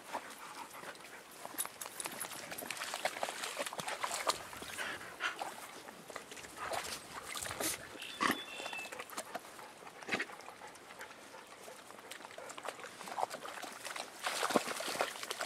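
Dogs making short, scattered sounds as they move about through grass and shallow water, amid irregular small scuffles and knocks.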